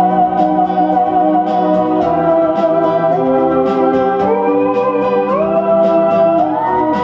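Moog Etherwave Standard theremin playing a slow melody, a held wavering note that drops about two seconds in and then slides up through several notes to a higher one near the end. Under it runs an electronic backing track with sustained chords and a steady ticking beat.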